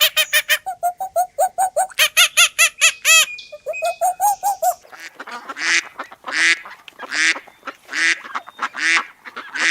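Birds calling: a rapid run of short, pitched calls, about five a second, then after about five seconds slower, longer calls roughly three-quarters of a second apart.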